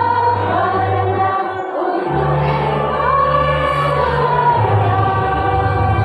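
Women's choir singing together in long held notes, with a steady low bass line underneath that drops out briefly just before two seconds in.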